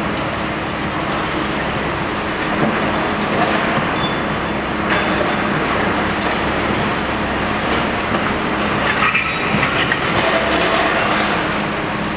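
Demolition excavators at work, a Hitachi KMC520BTV 34 m long-front high-reach machine and a Hitachi ZX870LCH, their diesel engines running under a steady crunching and clattering of concrete rubble, with a couple of brief high squeals.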